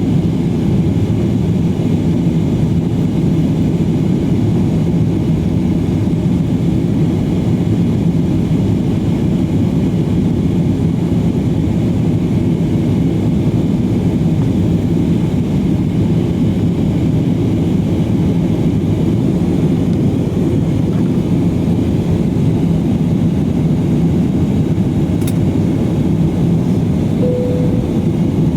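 Steady rumble of jet engines and airflow heard inside the cabin of an Airbus A320 climbing out after takeoff, with a faint click and a short tone near the end.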